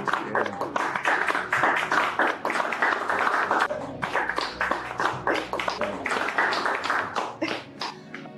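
Applause: a dense patter of hand-clapping that thins out and stops near the end.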